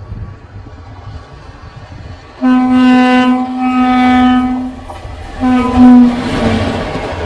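Teesta Torsa Express locomotive horn: one long blast about two and a half seconds in, then a shorter second blast that sags slightly in pitch as it ends, over the low rumble of the train. The rushing noise of the train running past swells near the end.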